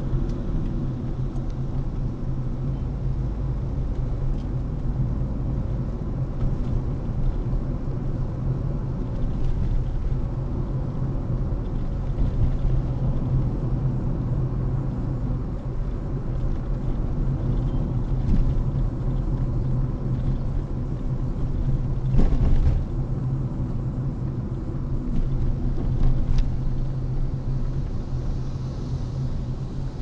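A car driving along a road, with steady low engine and road rumble and a couple of short knocks or bumps near the end.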